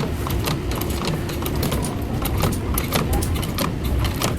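Factory machinery running with a steady low rumble, overlaid with rapid, irregular metallic clicks and clinks.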